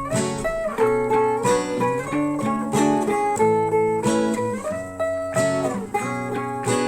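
Background music: an acoustic guitar playing repeated strummed and plucked chords.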